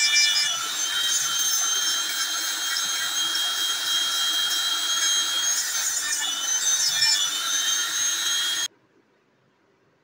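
Handheld rotary tool with a sanding drum running at high speed against a knife's wooden handle scales: a steady high whine over a grinding hiss. It cuts off suddenly near the end.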